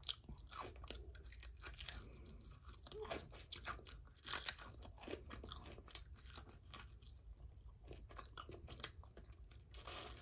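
Close-up chewing and crunching of fried food: quiet, irregular wet crackles and smacks of a mouth eating.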